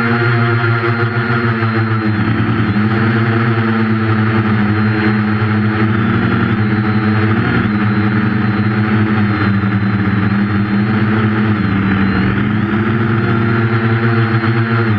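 Quadcopter's four 1200 kV brushless motors spinning 8.5-inch propellers, a steady buzzing hum whose pitch dips briefly about three times as the throttle is eased.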